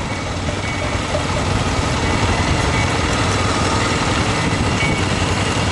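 Dual-sport motorcycle engine running steadily while the bike rolls slowly.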